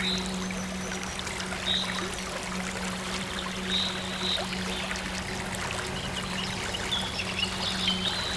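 Stream water trickling and pouring steadily, with short high bird chirps every second or two over a soft synth drone holding one low note.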